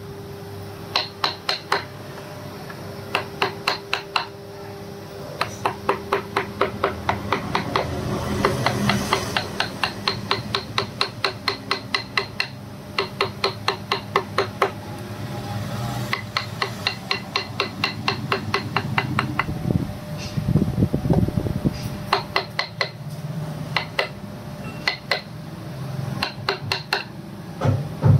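Wood carving by hand: a hammer tapping a carving chisel in quick runs of about four to five strikes a second, each strike with a short metallic ring, broken by brief pauses.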